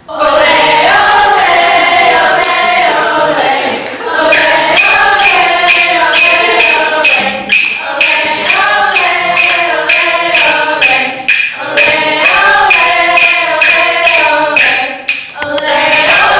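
A group of voices singing together in a choir, pausing briefly between phrases. From about four seconds in, sharp percussion strikes keep a steady beat under the song.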